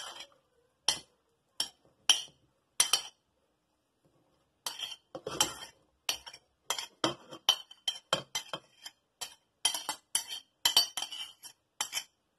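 A spoon clinking and scraping against a plate as chopped onions are pushed off it into a cooking pot. Sharp single clinks come about every half second, then a pause of over a second, then quicker, busier clinks and scrapes.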